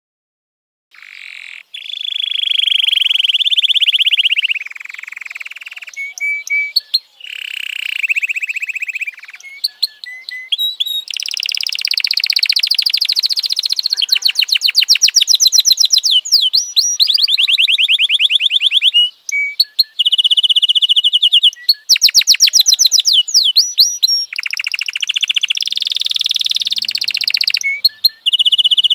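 F1 canary singing: a long song of fast trills and rolls of rapidly repeated notes, broken by short chirps and quick whistled sweeps, starting about a second in.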